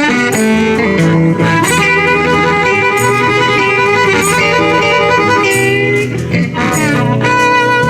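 Live blues band playing an instrumental passage: electric guitar over bass and drums, with a steady drum beat.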